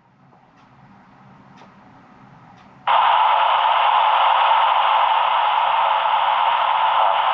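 Police scanner's speaker: quiet for the first few seconds apart from a few faint ticks, then about three seconds in a steady, loud radio static hiss comes on with no voice in it.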